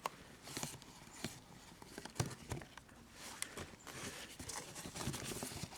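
Faint handling of a cardboard box and its packing: scattered light taps, clicks and rustles.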